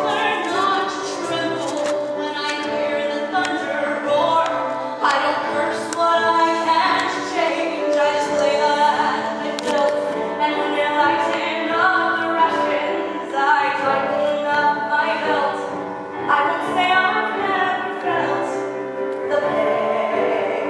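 A woman singing a musical-theatre solo ballad with instrumental accompaniment.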